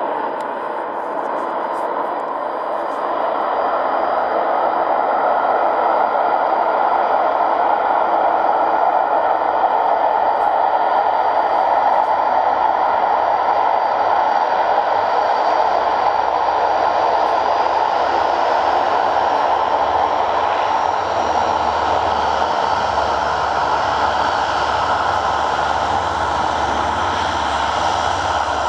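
Antonov An-12BK's four Ivchenko AI-20 turboprop engines running loud and steady as the plane rolls out along the runway after landing. The noise swells about four seconds in and eases slightly in the last third.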